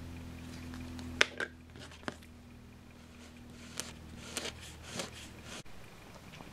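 A few small sharp clicks and taps from handling a super glue bottle and thin wires on a cutting mat, over a steady low hum that cuts off near the end.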